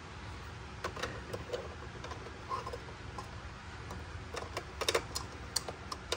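Light plastic clicks and taps from tiny toy kitchen pieces being handled. The clicks come scattered, bunch together as the miniature oven is worked, and the sharpest click falls at the very end.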